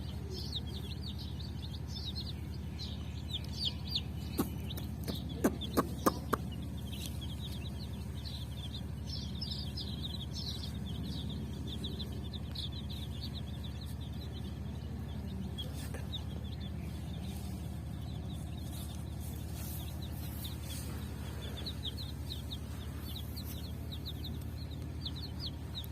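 A group of baby chicks peeping continuously, a dense stream of rapid high cheeps. A handful of sharp taps sound about four to six seconds in, over a steady low hum.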